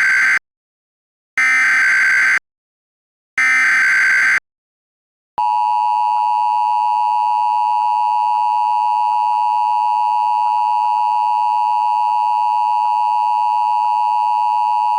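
Emergency Alert System SAME header: buzzy digital data bursts about a second long, repeated with a second of silence between them, the first already sounding and two more following. Then the steady two-tone EAS attention signal (853 and 960 Hz together) sounds for about ten seconds and cuts off suddenly, marking the start of an emergency alert message.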